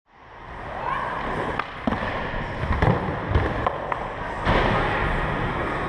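Skateboard wheels rolling on a concrete skatepark floor, with scattered knocks and thuds of the board; the rolling gets louder about four and a half seconds in.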